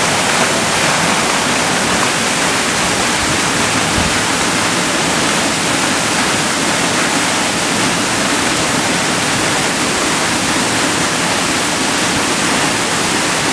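Waterfall pouring down a rock face into a shallow pool: a steady, loud rush of falling and splashing water.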